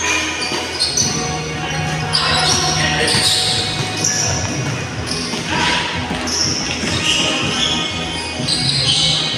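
Indoor basketball game in a large gym: the ball bouncing on the court and sneakers squeaking in short high-pitched chirps throughout.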